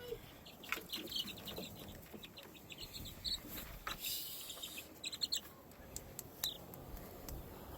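Young chicks peeping: scattered short, high chirps, some in quick runs of three or four, with a few faint clicks and rustles.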